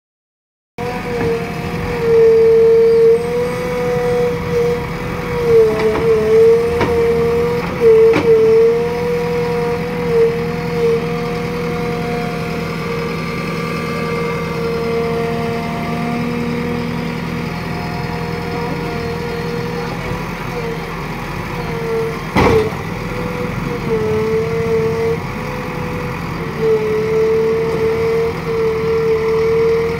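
JCB 3DX Eco Xpert backhoe loader's diesel engine running steadily as it works the front loader bucket through wet soil. Its steady note dips briefly now and then. A few sharp knocks are heard, the clearest about 22 seconds in.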